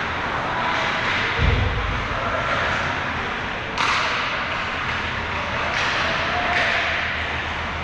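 Ice hockey game sounds over a steady arena din: a heavy low thud about a second and a half in, then sharp cracks of a stick or puck striking, the loudest about four seconds in and two weaker ones later.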